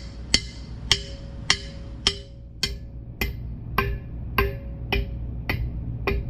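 Hammer striking a homemade I-beam anvil in a steady rhythm, about eleven sharp clanks a little over half a second apart, each with only a short ring. The beam has been damped, and the long, gong-like ring of the bare beam is gone.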